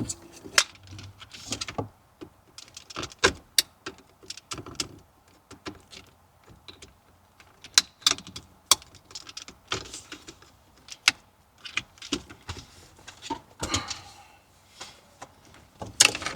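Irregular sharp plastic clicks, knocks and rattles as wiring connectors and harness plugs are unlatched and handled behind a car's dashboard, with rustling of loose wires between them.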